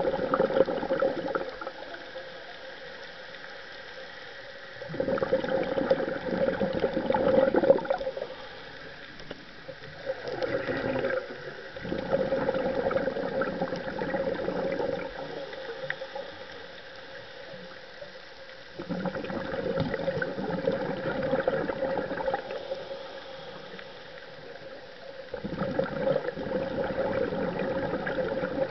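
A scuba diver's regulator exhaust: exhaled bubbles rushing and gurgling in bursts of two to three seconds, about every six or seven seconds, as an underwater breathing rhythm, with quieter stretches between breaths.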